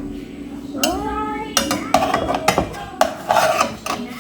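A metal utensil scraping and knocking against a cooking pot in a run of short repeated strokes as boiled yam pieces are lifted out, with a brief rising tone about a second in.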